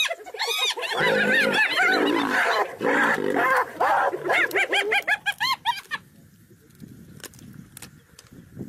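Spotted hyenas giggling and yelping in a rapid series of rising-and-falling calls, over a rough growl from the lioness among them. The calls stop suddenly about six seconds in.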